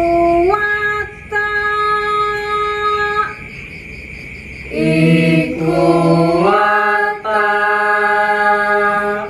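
Unaccompanied voices singing a slow Javanese tembang macapat Pangkur melody in long held notes that step up and down in pitch, with a break about three seconds in. After the break several voices sing at once at different pitches. A steady high chirring runs underneath.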